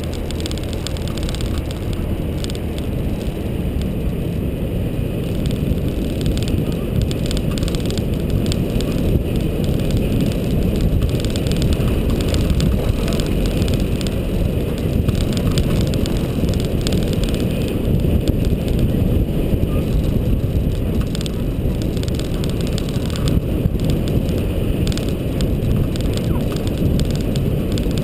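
Nissan GU Patrol with the TB45 petrol straight-six driving steadily along a dirt track, heard from a camera mounted outside on the vehicle: a steady low rumble of engine and tyres with wind buffeting the microphone.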